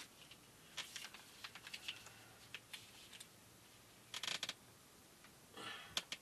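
Crinkling and clicking of a soft plastic mayonnaise pouch being handled and its cap opened, followed by two short louder bursts in the second half as mayonnaise is squeezed out of the pouch over a frying pan.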